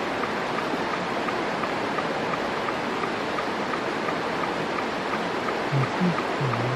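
Upland river water rushing steadily.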